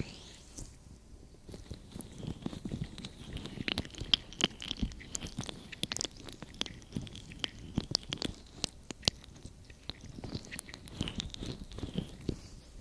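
Oily fingers kneading and rubbing the ears of a binaural ASMR microphone: close, wet crackling and squelching made of many quick clicks, thick and uneven.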